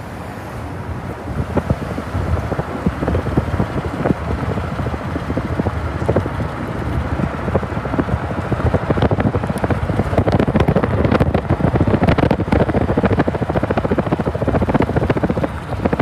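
Wind buffeting the microphone over the rush of a moving car's road noise, growing somewhat louder after the middle.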